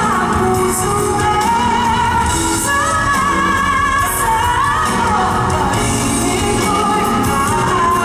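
A woman singing a Filipino love song live with a band, holding long notes with vibrato over keyboard and drums, cymbals ringing throughout.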